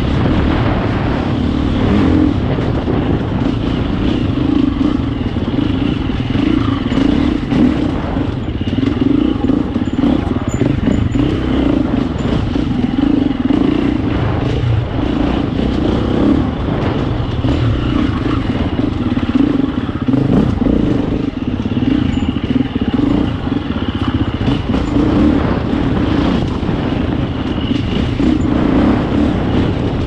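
Husqvarna FE 350 enduro bike's single-cylinder four-stroke engine ridden hard, the throttle opening and closing constantly so the engine note keeps rising and falling, with a few brief drops as it comes off the gas. Short knocks and clatter from the bike over rough ground run through it.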